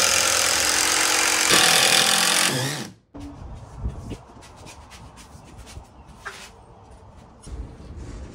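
Cordless DeWalt impact driver running hard as it drives a screw into the door frame, then stopping abruptly about three seconds in. Afterwards, quieter knocks and clicks as the heavy glass sliding-door panel is handled in its frame.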